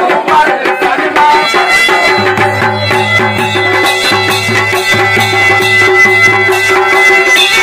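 Kumaoni folk music for the chhalia dance, an instrumental passage between sung lines: dhol and damau drums keep a steady beat under held, reedy tones from the masakbeen, the Kumaoni bagpipe.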